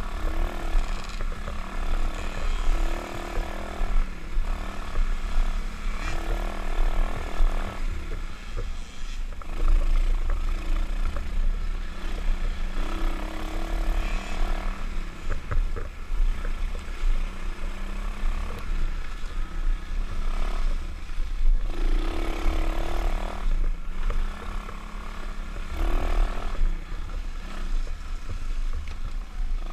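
125cc pit bike engine running under load and changing revs through the gears while ridden along a sandy trail, with wind buffeting the helmet-mounted camera.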